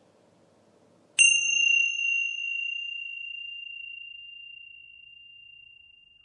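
A bell struck once about a second in: a bright, clear high ring that fades slowly over about five seconds.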